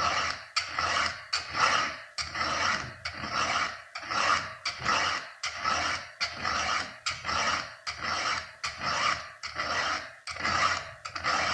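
Round chainsaw file rasping across a chain's cutter tooth in steady, even hand strokes, a little more than one a second.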